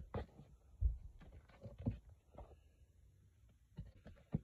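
Comic books in plastic bags with backing boards being flipped through by hand in a cardboard long box: soft irregular taps, knocks and plastic rustles, with a dull knock about a second in and a sharper click near the end.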